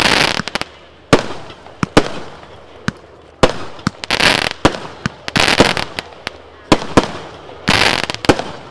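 Rubro 'The Hoax' and 'Insomnia' firework cakes firing. Sharp single bangs of bursting shots alternate with several half-second rushes of dense crackling from crackling stars, near the start, about four and five and a half seconds in, and near the end.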